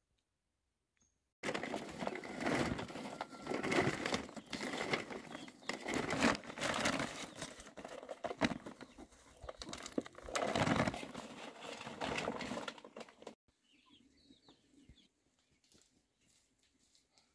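Rustling of a plastic sack and rattling of dark granules being scooped and handled in a wide bowl, a dense run of crackles and clicks that stops suddenly after about twelve seconds. A few faint bird chirps follow in the quiet.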